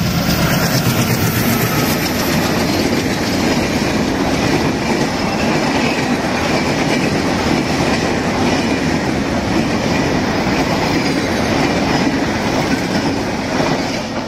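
Diesel-hauled express passenger train running through at speed: the locomotive, then a long string of coaches, their wheels clattering over the rails in a loud, continuous rush that drops off near the end.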